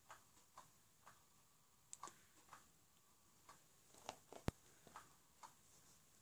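Faint clicks and ticks, roughly two a second but uneven, with one sharper click about four and a half seconds in, in near silence.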